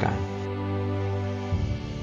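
Instrumental background music: a held chord that changes to a new one about a second and a half in.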